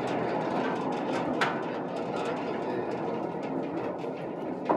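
Monastery goods-hoist cage on its wheeled carriage rolling along steel floor rails: a steady rumble with one sharp clank about one and a half seconds in.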